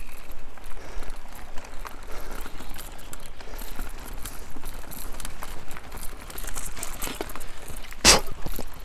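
Mountain bike rolling along: steady tyre noise with many small rattles and clicks, and one sharp knock about eight seconds in.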